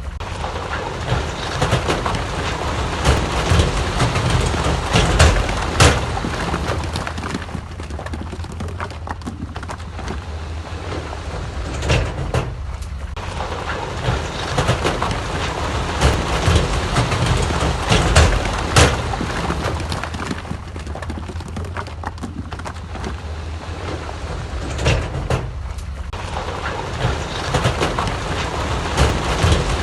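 Heavy earthmoving machinery's diesel engine running steadily, with frequent sharp clanks and knocks over the engine noise. The sound dips briefly about twelve seconds in and again near the end.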